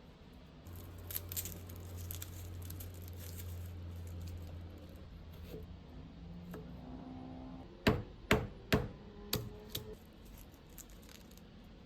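Kitchen cooking sounds: a low steady hum for a few seconds, then about five sharp knocks of a utensil in quick succession.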